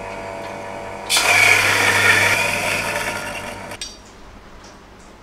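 Small Latina electric burr coffee grinder: the motor hums running empty, then about a second in the beans go in and it grinds loudly for about two and a half seconds before stopping abruptly. The motor is running before the beans are added, the way the grinder should be fed.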